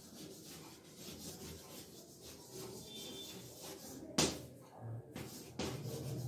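Chalk writing on a blackboard: a run of short, scratchy strokes, with one sharp knock about four seconds in and a lighter one a little later.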